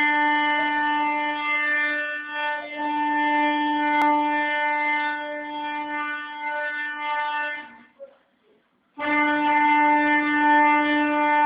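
A CNC foam-cutting pantograph's drive motors whining at one steady pitch as the machine moves through a cutting pass. The whine stops for about a second roughly two-thirds of the way in, then starts again at the same pitch.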